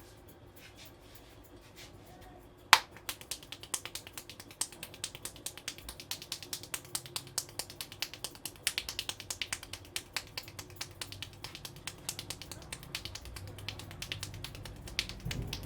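Percussive hand strokes of a head massage: a fast, even run of sharp slapping claps, about three to four a second. A single loud sharp snap comes about three seconds in, just before the run starts.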